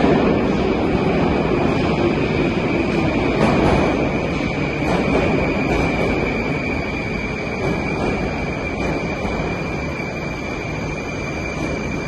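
Metro station platform noise: a steady rumble with a constant high-pitched whine running through it, easing off slowly, with a metro train standing at the platform.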